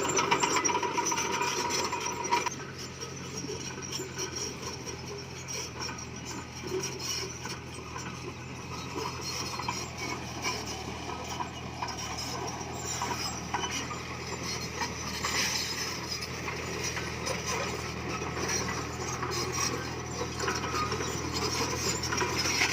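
Komatsu D20P bulldozer's diesel engine running steadily under the clatter of its steel tracks and the scrape and clink of stone being pushed. The scraping is loudest for the first couple of seconds, then settles to an even clatter.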